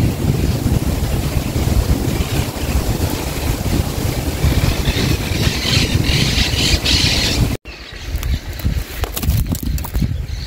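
Wind buffeting the microphone, a heavy low rumble, with a higher hiss swelling for a few seconds in the middle. About two-thirds of the way through it cuts off suddenly and gives way to a lighter rumble with scattered small clicks.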